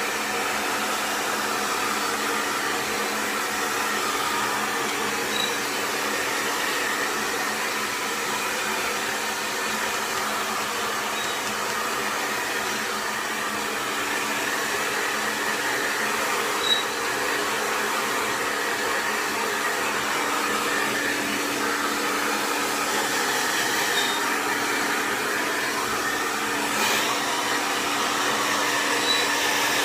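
Xtava Allure 2200 W professional hair dryer running steadily while blow-drying hair: an even rush of air over a steady motor hum, like a wind tunnel.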